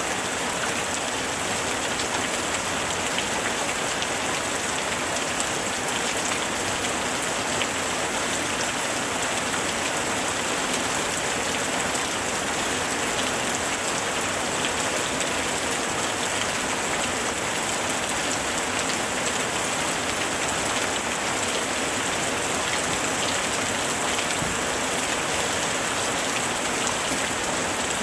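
Steady rain falling, a dense even hiss scattered with the ticks of individual drops landing.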